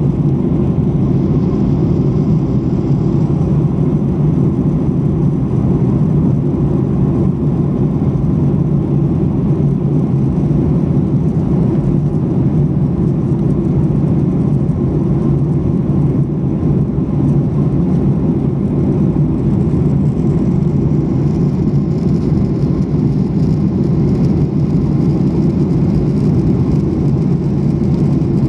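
Steady low cabin roar of a Boeing 737-800 airliner in cruise, heard inside the passenger cabin, even in level throughout.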